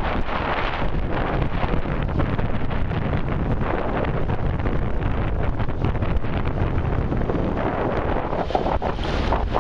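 Wind buffeting the camera microphone in a steady, unbroken rumble, with no distinct motor or voice above it.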